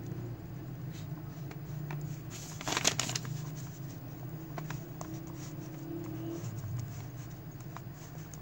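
Ballpoint pen scratching across a hand-held sheet of paper as it sketches, with a short crackle of paper handling about three seconds in, over a steady low hum.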